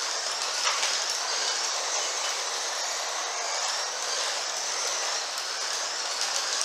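Carrera Digital 1/24 slot cars lapping the track: a steady whir and hiss from their small electric motors and wheels on the plastic track, with a high whine that rises and falls as the cars speed up and slow down.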